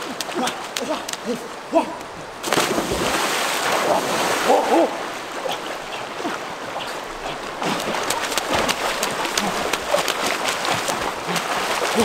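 People plunging into a river and swimming hard, churning the water in continuous splashing that starts suddenly a couple of seconds in. Short calls that rise and fall in pitch come and go throughout.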